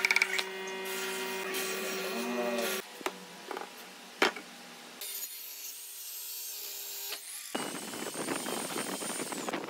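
Claw hammer striking nails into a wooden slab at the start, a few sharp knocks of wood being handled with the loudest about four seconds in, then a dense scratching rub of a pencil drawing on a wooden board near the end.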